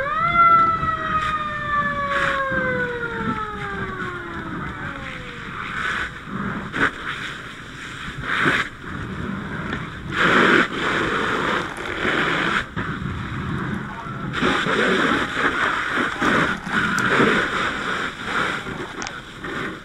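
A siren tone sweeps up sharply and then coasts slowly down over about five seconds, like a mechanical fire siren given a brief wind-up. Under and after it runs the uneven rushing hiss of a fire hose stream, surging at times, with a few sharp knocks.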